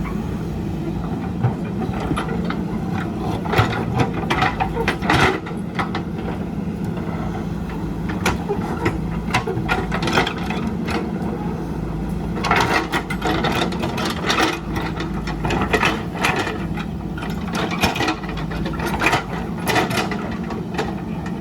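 JCB backhoe loader's diesel engine running steadily under load, with irregular knocks and clatters of the bucket digging and scraping through soil and rock.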